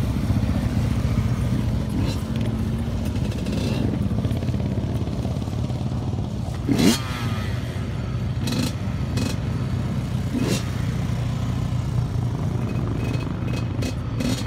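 Small quad ATV engines running steadily as they are ridden on dirt, with one engine revving sharply upward in pitch, loudest about seven seconds in.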